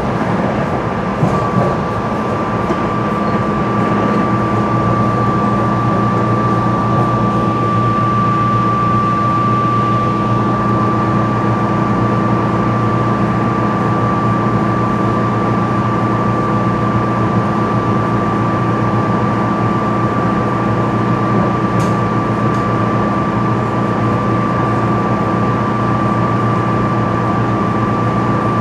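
SEPTA Silverliner IV electric multiple-unit train running at steady speed, heard from on board: an even rumble of wheels on rail with a steady hum and a steady high whine that sets in about a second in.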